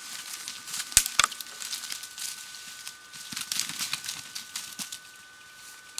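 Two sharp snaps about a second in, then scattered crackling and rustling of twigs and dry leaves.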